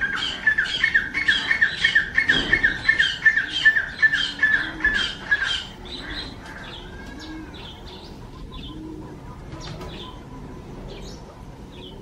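A bird giving a loud run of repeated calls, about four a second, for some six seconds, then stopping; after that only scattered short chirps and soft low calls from the flock.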